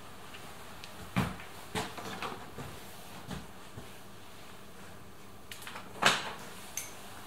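A few scattered knocks and clicks of hands and tools handling metal parts inside an open car door, the loudest about six seconds in.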